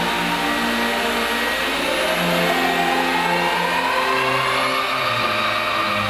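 Diamond wall saw running, its large segmented blade cutting concrete with a steady grinding noise and a whine that rises in pitch over several seconds.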